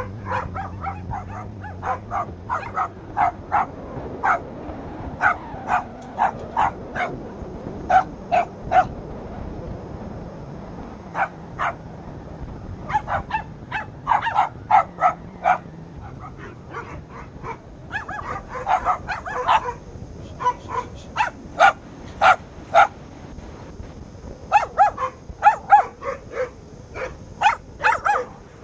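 Lhasa Apso puppies barking in quick, high-pitched yaps, in bursts broken by short pauses of a second or two.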